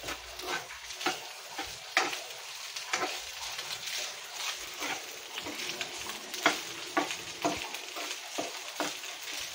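Fried rice sizzling steadily in a nonstick pan as it is stirred with a slotted spoon. The spoon scrapes and knocks against the pan in short irregular clicks, about one or two a second.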